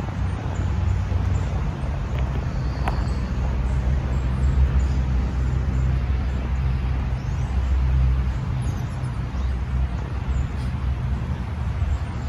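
Steady low rumble of road traffic with no single vehicle standing out, and a few faint bird chirps above it.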